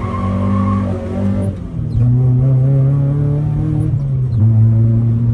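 1990 Mazda Miata's 1.6-litre four-cylinder engine heard from inside the cabin during a short slide, holding steady revs that step up about two seconds in, dip briefly, and climb again about four seconds in. A tyre squeal fades out in the first second.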